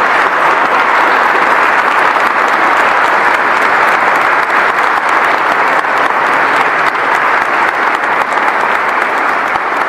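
A large crowd applauding, a steady, dense round of clapping that goes on without a break.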